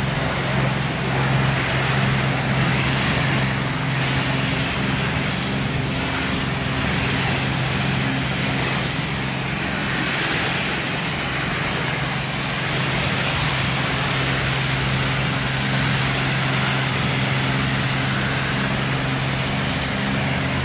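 High-pressure wand of a self-service car wash spraying detergent water onto a car: a steady hiss of spray with a steady low hum underneath.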